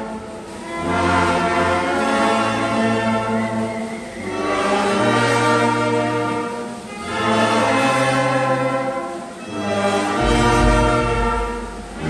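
Instrumental ensemble music: sustained melodic phrases over held bass notes, swelling and dipping in loudness about every three seconds.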